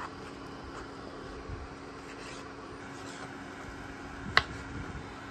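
Chef's knife trimming fat from raw chicken thighs on a bamboo cutting board: soft scraping and rubbing of the blade, with one sharp knock of the knife on the board about four seconds in. A faint steady hum runs underneath.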